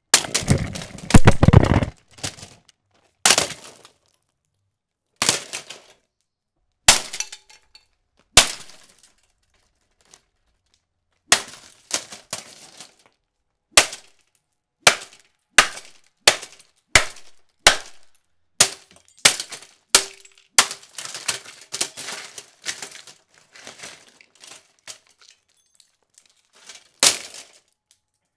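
Golf club striking a Lasko 3733 20-inch box fan over and over, with cracking plastic and rattling pieces. A quick flurry of hits comes first, then single blows every second or two, which come faster from about eleven seconds in.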